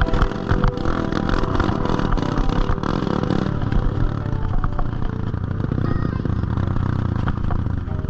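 Trail motorcycle engine running, with repeated clattering knocks over it. The bike is a Kawasaki KX fitted with a Honda Sonic engine.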